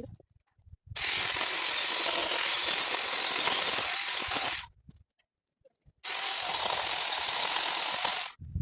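Small handheld power cutting tool running in two bursts of about three and a half and two seconds, each starting and stopping abruptly, with a short silence between.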